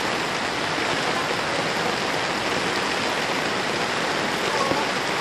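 Rain falling steadily onto a flooded street, a constant even hiss of water.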